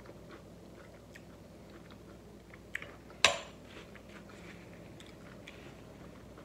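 Soft, close chewing of loaded fries, with one sharp clink of a metal fork against the plate a little over three seconds in, just after a smaller tap.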